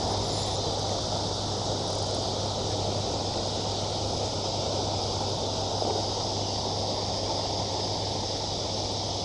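Steady outdoor background: an even, high insect chirring over a constant low rumble.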